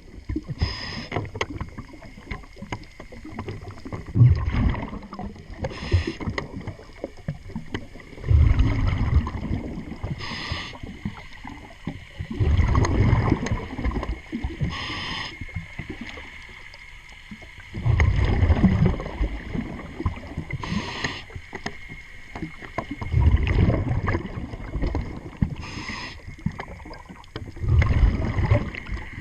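A scuba diver's regulator breathing underwater: a short hiss on each inhale, then a burst of bubbling from each exhale, repeating about every five seconds.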